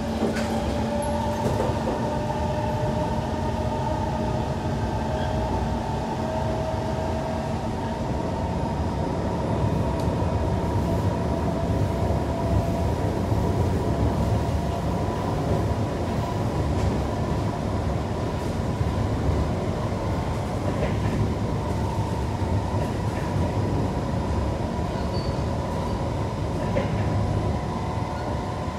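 Kawasaki C151 metro train running between stations, heard from inside the car: a steady rumble of wheels on rail with a held whine from the running gear.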